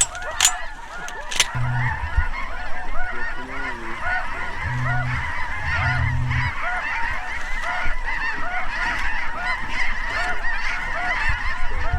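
A large flock of geese calling, short honks overlapping without pause. Two shotgun shots about a second apart come near the start, and a low steady tone sounds twice in the middle.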